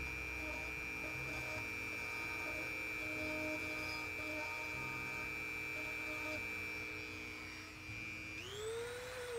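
Background music of held electronic tones with a few soft notes, ending near the end in a pitch sweep that rises and then falls before fading.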